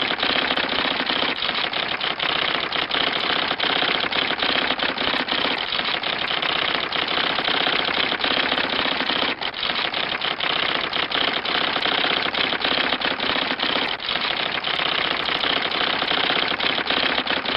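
Typewriter sound effect: a rapid, continuous clatter of keystrokes.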